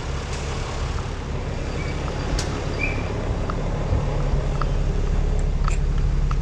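Fire truck engine idling with a steady low rumble that grows gradually louder, with a few light clicks over it.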